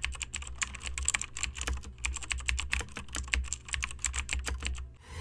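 Typing sound effect: rapid, irregular keyboard key clicks over a low steady hum, stopping about five seconds in, as a rising swell starts right at the end.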